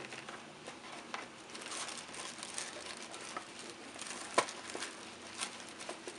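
Tissue paper crinkling and rustling as hands part it inside a cardboard box, with scattered small clicks and one sharper tap a little past the middle.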